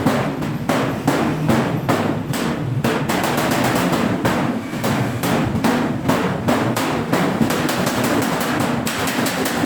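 Hammer striking sheet steel in a fast, steady run of blows, about four a second.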